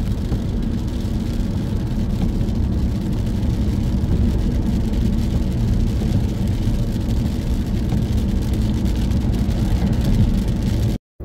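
Steady low drone of a car driving at speed on a wet road, heard from inside the cabin: engine and tyre noise. It cuts off abruptly near the end.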